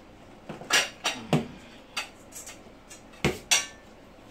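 Kitchen cookware clattering: about six sharp clanks and clinks of pots, bowls and utensils being handled, the loudest near the start and again about three and a half seconds in.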